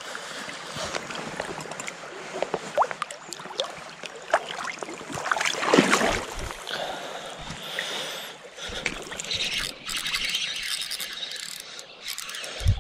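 Shallow river water splashing and sloshing around a landing net as a brown trout is let go, with short knocks and rubbing of the net and rod, and a louder splash about six seconds in.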